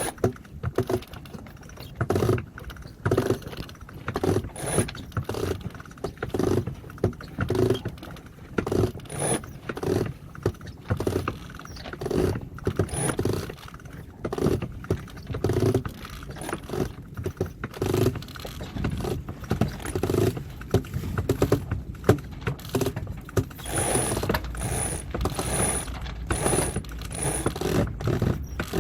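Sailboat winch ratcheting in short repeated bursts, about once a second, as the halyard line is hauled in to take up slack.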